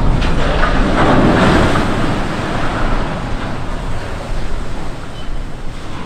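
A ship's hull drops sideways off the slipway into the water in a side launch: a sudden heavy splash and rush of water, loudest in the first couple of seconds, then a surging wave that slowly dies down.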